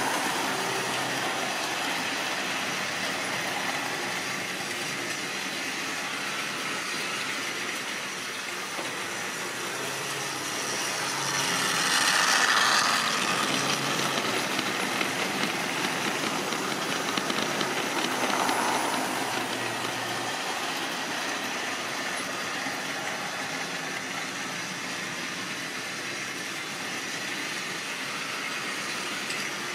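Model railway train running along the track: the locomotive's small electric motor and the rolling stock's wheels make a steady running sound. It grows loudest about twelve seconds in as the train passes closest, with a second smaller rise near nineteen seconds.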